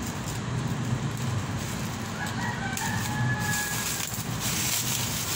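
Scissors cutting and crinkling the plastic wrapping on a barbell, with a drawn-out bird call a little over two seconds in, lasting about a second and a half.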